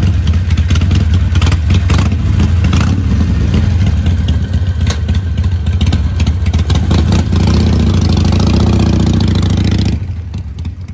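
Harley-Davidson Iron 883's 883 cc air-cooled V-twin running loud and being revved on the throttle, held higher for a couple of seconds near the end. About ten seconds in the sound drops off as the bike pulls away.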